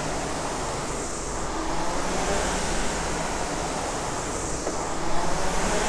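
Concept2 RowErg rowing machine's air-resistance fan flywheel whooshing under steady rowing, swelling and fading with each stroke about every two and a half seconds.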